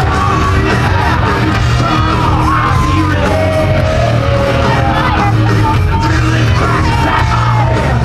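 Loud music with a heavy, steady bass and a singing voice, with yells over it.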